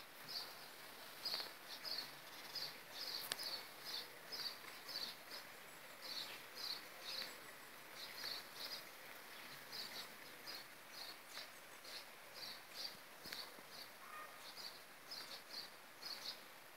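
Steady rain hissing, with a few sharp ticks, while a small bird chirps repeatedly in quick pairs and threes of short high notes.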